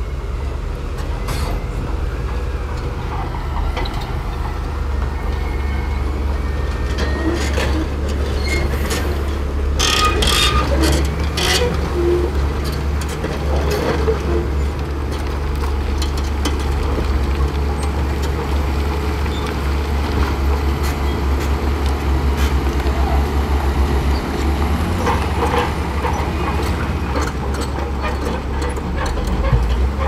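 Heavy diesel engines of dump trucks running steadily while the trucks tip sand from raised beds, with a few clanks about ten seconds in.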